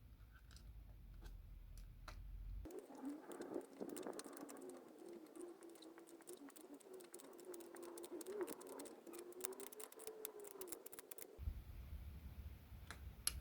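Faint small clicks and scratching of hand tools and nuts being handled as nylock nuts are fitted onto bolts, with a faint wavering tone through most of the middle.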